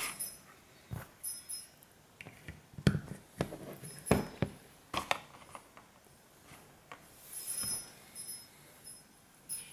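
A series of light knocks and taps as a small brown glass nasal spray bottle and its cardboard box are handled and set down on a table, with a brief rustle about seven and a half seconds in.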